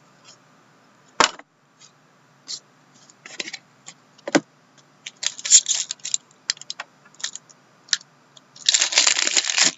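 Trading cards and their plastic sleeves being handled: scattered sharp taps and clicks with short rustles, then a longer crinkling rustle near the end.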